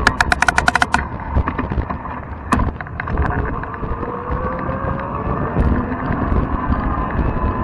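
Wind buffeting the microphone and tyre rumble from a fat-tire electric bike rolling along, with a faint whine from its electric motor that fades near the start and returns near the end. A quick run of about ten clicks comes in the first second, and a single sharp knock comes about two and a half seconds in.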